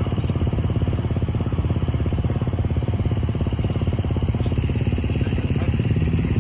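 Motocross bike engine idling steadily, an even rapid pulse of firing strokes that holds the same pace throughout.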